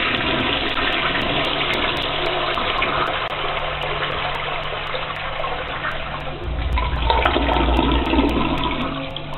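Toilet flushing: a long, steady rush of water, with a deeper rumble joining in about two-thirds of the way through before it dies away near the end.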